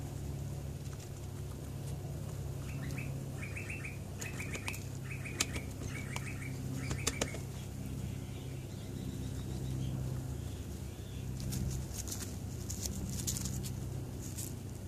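A bird gives short trilled chirps, repeated roughly once a second for a few seconds, over a steady low hum. Sharp crunching clicks and crackly rustling follow as guinea pigs graze and move in the grass, the rustling strongest near the end.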